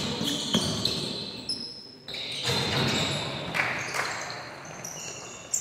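A basketball being dribbled and bounced on the court floor during a game, a few sharp bounces mixed with players' footsteps and short high squeaks.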